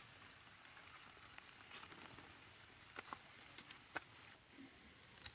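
Near silence: faint outdoor hiss with a few scattered soft ticks, the sharpest one near the end.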